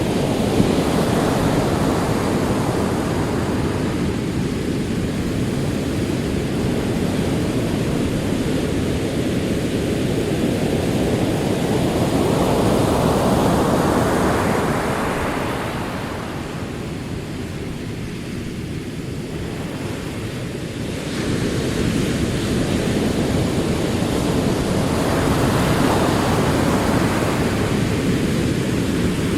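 Ocean waves rolling in and washing up: continuous surf noise that swells and ebbs slowly, dipping quieter for a few seconds past the middle, then building again as the next wave comes in.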